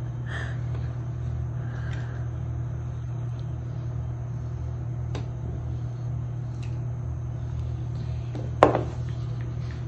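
Steady low hum of room noise, with a few faint clicks and one brief sharp sound near the end.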